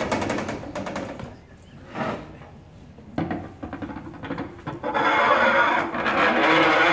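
Improvised performance sounds from a cellist playing his cello and the rooftop around him. Quick rhythmic tapping fades out about a second and a half in, a lone knock comes after a short lull, and from about five seconds in a loud, rough scraping sound with a steady pitch beneath it takes over.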